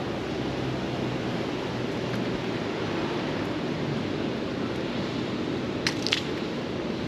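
Steady outdoor noise haze, wind on the microphone mixed with distant traffic, with two short sharp clicks about six seconds in.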